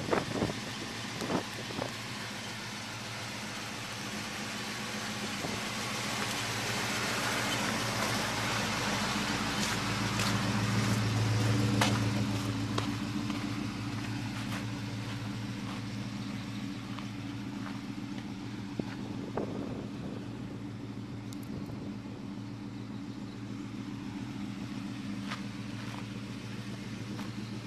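Chevy 400 small-block V8 idling steadily through a true dual 3-inch exhaust with Magnaflow stainless mufflers, a low, even burble. It grows louder for a few seconds around the middle, then settles back. The owner reports an exhaust manifold leak on the engine at this time.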